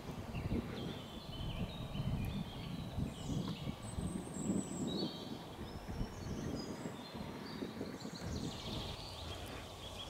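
Several small birds singing, short chirps and trills overlapping throughout, over a low, uneven rumble.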